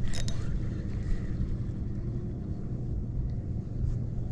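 Steady wind rumble on the microphone with choppy water lapping at a kayak's hull; a couple of short clicks right at the start.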